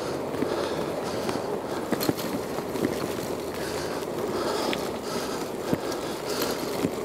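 Bicycle rolling along a rough paved path: steady tyre rumble with frequent small knocks and rattles from the bike over bumps. The rider's breathing comes through in recurring breaths.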